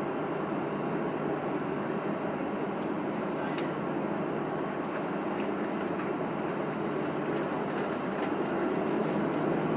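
Boeing 737's jet engines running at low power, heard inside the passenger cabin as a steady rush of noise with a low steady hum that grows a little louder near the end.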